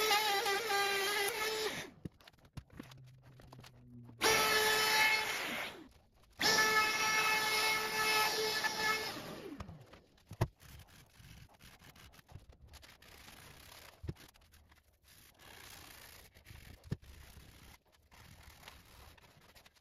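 Electric router running in three runs with a high steady whine while routing the edge of a round oak tabletop, the last run winding down about halfway through. Then quieter rubbing of sandpaper by hand over the oak, with a few light knocks.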